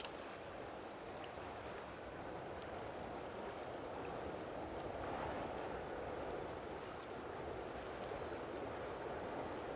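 An insect chirping in short, high, evenly repeated chirps, about two or three a second and often in pairs, over a steady rushing background noise.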